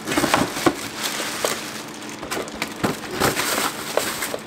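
Plastic bags crinkling and rustling, with irregular knocks and clicks, as hands handle bagged car parts and a hose in a plastic crate.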